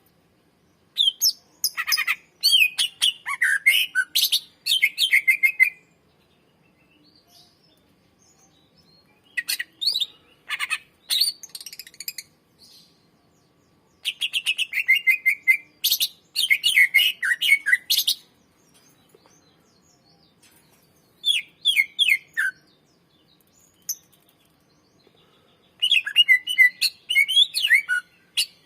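Cucak ijo (greater green leafbird) singing in five bursts of fast, chattering, whistled phrases, separated by short pauses.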